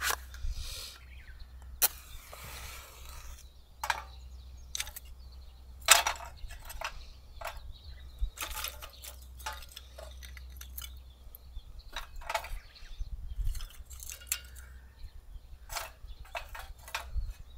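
A firelighter match struck about two seconds in, flaring with a short hiss, followed by irregular wooden knocks and metallic clinks as sticks of kindling are fed into a small stainless-steel wood stove.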